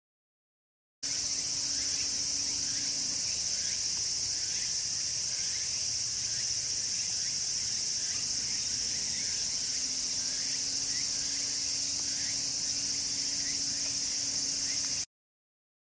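Dense insect chorus: a steady high-pitched shrill, with short chirps repeating below it and a faint steady low hum in the first two seconds and again from about the middle on. The sound starts abruptly about a second in and cuts off abruptly near the end.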